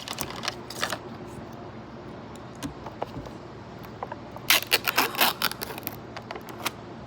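Plastic snack packaging being handled and opened: scattered clicks and crinkles near the start, then a dense flurry of crackling about halfway through.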